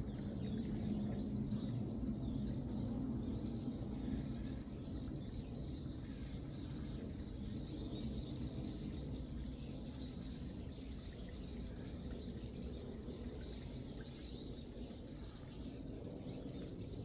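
Small birds chirping and twittering again and again over a low, steady background rumble.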